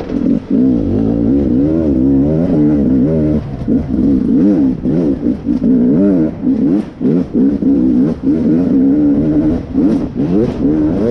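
Beta RR 300 two-stroke enduro motorcycle engine revving hard under riding load, its pitch rising and falling every second or so, with short dips in loudness between pulls.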